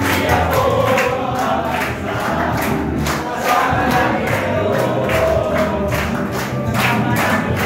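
A group sings a Tagalog Christian worship song along with backing music from a portable loudspeaker, clapping their hands in a steady beat.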